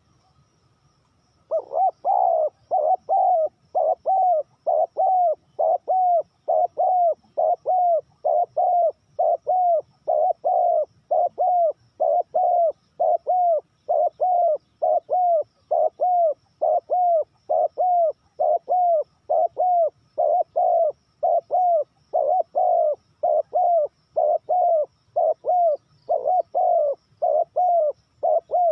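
Spotted dove cooing: short, evenly spaced coos, about two a second. They begin a second and a half in and run on without a break.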